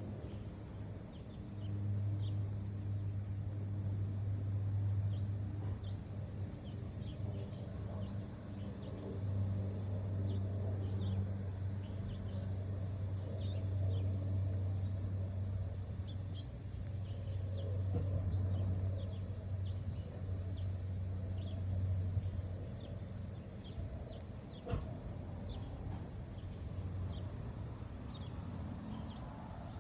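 Steady low hum, like a distant engine running, that swells and fades, with small birds chirping now and then and a single knock about 25 seconds in.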